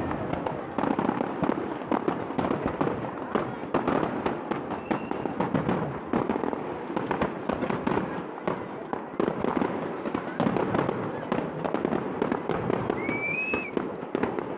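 Fireworks display: a rapid, continuous run of bangs and crackles from bursting aerial shells.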